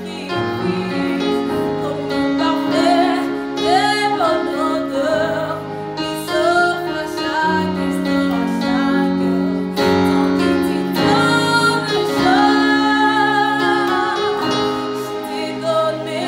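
A woman singing a worship song, her voice held on long wavering notes, accompanied by sustained chords on an electronic keyboard.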